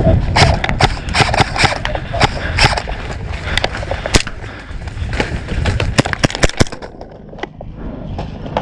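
Airsoft guns firing in irregular single shots and short quick strings over a low rumble; the shooting thins out near the end.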